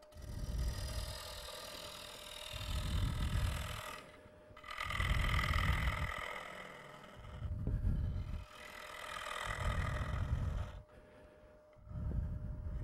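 Bowl gouge cutting into a green live oak bowl spinning on a lathe, a rough hollowing cut made in about five or six passes, each a hissing, rumbling swell lasting one to two seconds. A faint steady hum continues underneath between the passes.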